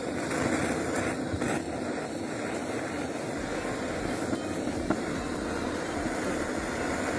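Handheld butane flame-gun torch on a cassette gas canister burning with a steady, even rushing hiss. A single light click about five seconds in.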